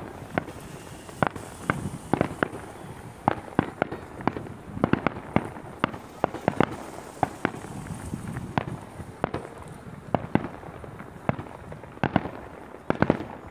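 Fireworks display: aerial shells bursting in an irregular run of sharp bangs, often several in quick succession.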